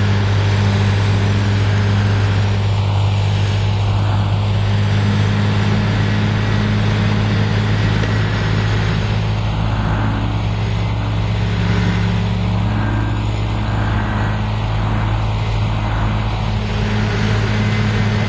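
Cat 938G wheel loader and its snowblower attachment running steadily at work: a heavy diesel hum under a broad rushing noise of the blower throwing snow.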